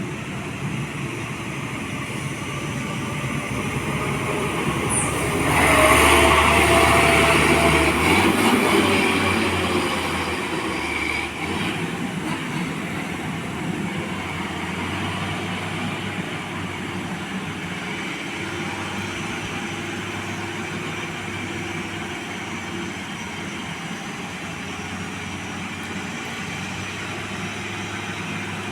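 Mercedes-Benz logging truck's engine running with a steady heavy rumble. It swells louder about six seconds in and eases back over the next few seconds.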